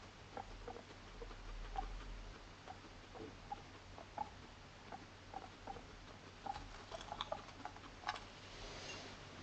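Abyssinian guinea pig eating from a ceramic food bowl: irregular small crunching clicks of chewing, with a brief rustle near the end.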